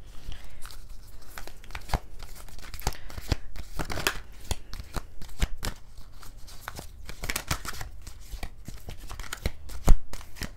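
A deck of oracle cards shuffled by hand, a quick irregular patter of card edges clicking and rustling against each other, with a sharper knock near the end.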